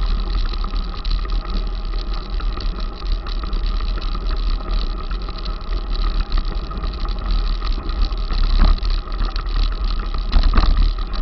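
Wind rumbling on the microphone of an action camera riding along on a mountain bike, over a constant rattle and knocking as the bike and camera jolt across a rough, muddy dirt track. There are louder jolts about eight and ten seconds in.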